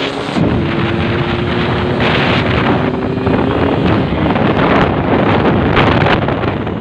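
Yamaha RX-King two-stroke single-cylinder motorcycle engine running under way, under heavy wind buffeting on the microphone. A steady engine note holds for the first four seconds or so.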